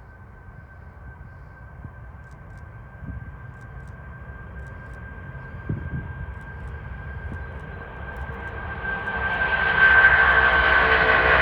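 Boeing 747 freighter's jet engines at takeoff power: a steady high whine over a rushing noise that grows steadily and gets much louder over the last two seconds or so.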